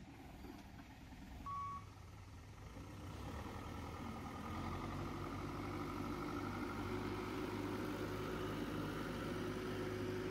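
Manitou backhoe loader's diesel engine running as the machine drives, getting louder from about three seconds in. A single short beep sounds about one and a half seconds in.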